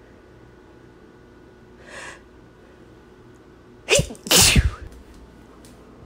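A woman sneezes once, loudly, about four seconds in, in two quick parts: a short sharp burst, then a bigger one.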